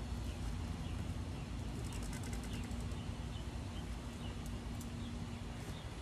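Outdoor ambience: a steady low rumble with a faint hum under it, and faint bird chirps. A quick run of clicks comes about two seconds in, and two more clicks near the end, as a burlap-and-plastic-wrapped root ball is handled.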